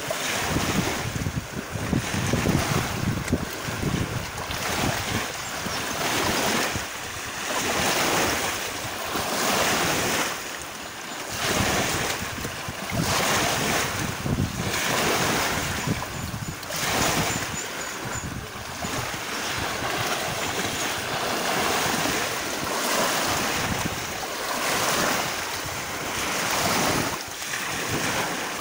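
Lake waves washing in a regular rhythm, swelling about every second and a half, with wind rumbling on the microphone.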